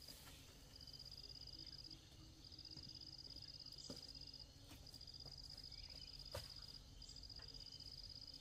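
Faint insect trilling: a high, rapidly pulsed buzz in runs of one to two seconds with short breaks between them. Two faint clicks come about four and six seconds in.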